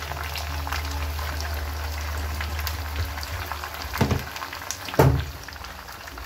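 Hot oil sizzling and crackling in a pot under freshly added mashed potatoes, over a steady low hum. Two short dull knocks about four and five seconds in.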